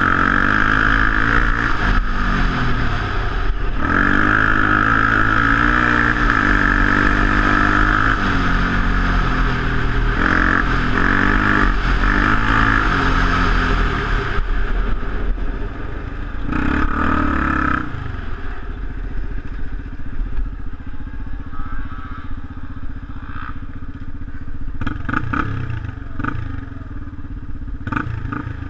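Off-road motorcycle engine under way on a dirt track, its revs rising and falling again and again through the gears. About eighteen seconds in it settles to a lower, quieter run, with a few clattering knocks near the end.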